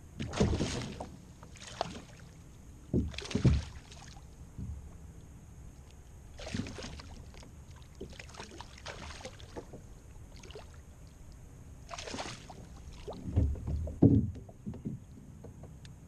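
Irregular noise on a fishing kayak: about eight short bursts of water and handling sounds with low knocks against the hull, the loudest near the end.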